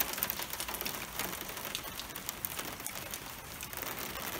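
Small ice pellets mixed with rain falling on a car's hood, a steady hiss of many small sharp ticks.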